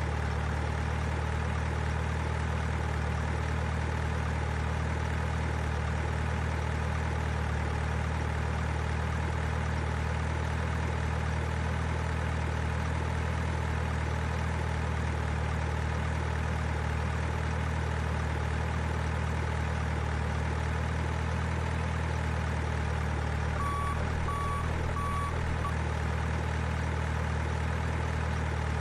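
Steady idling drone of a heavy diesel truck engine sound effect, as played on an RC model truck, holding one even pitch throughout. About three-quarters of the way through, three short reversing beeps sound.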